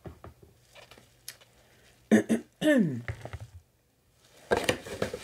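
Packaging being handled as the next product is taken from a subscription box. Small taps and rustles come early on and a denser burst of rustling comes near the end. A brief murmured vocal sound falls in pitch about halfway through.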